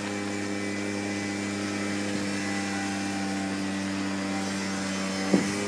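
A vehicle engine running steadily at a constant speed, a single hum that holds the same pitch throughout.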